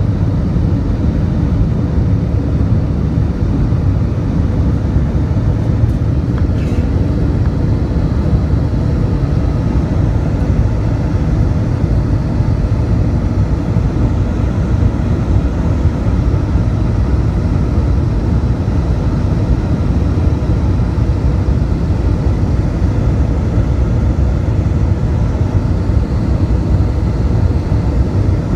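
Airbus A320 airliner in flight shortly after takeoff, heard inside the cabin: a loud, steady low rumble of the jet engines and rushing air, with a faint steady hum above it.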